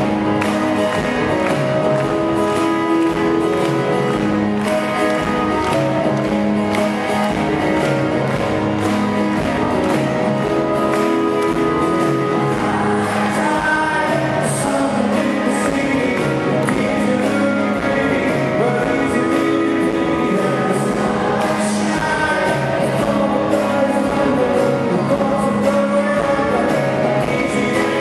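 Live rock band playing a song, with a sung lead vocal over guitars and band.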